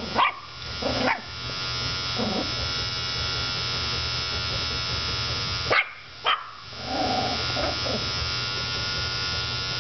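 A beard trimmer buzzing steadily on a rug while a Yorkshire terrier barks at it several times in short sharp barks. The buzz drops out briefly about six seconds in, then resumes.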